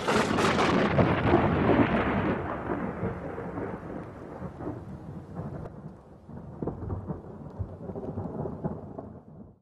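Thunder sound effect: a loud crack that starts suddenly and rolls into a long rumble with crackles, swelling again in the second half before cutting off suddenly near the end.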